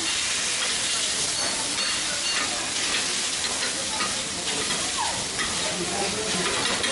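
Shredded cabbage sizzling on a hot teppan griddle while two metal spatulas chop and scrape through it, with short clacks of metal on the plate. This is the first stage of making monjayaki, frying the cabbage.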